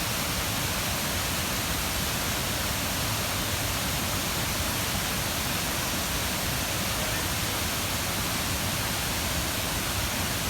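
Waterfall rushing: a steady, unbroken sound of falling water.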